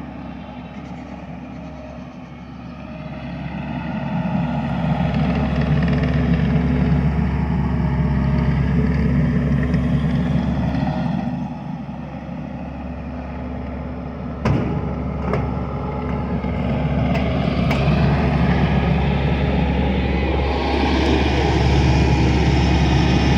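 A vehicle engine running steadily, louder and working harder a few seconds in, easing off about halfway and picking up again near the end. A few sharp knocks come in the middle.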